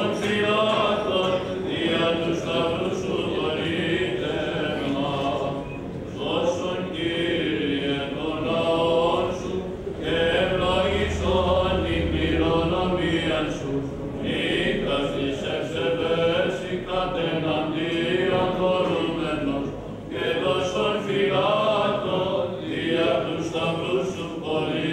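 Greek Orthodox liturgical chanting by clergy during a blessing (agiasmos) service, sung in long melodic phrases with short breaks between them.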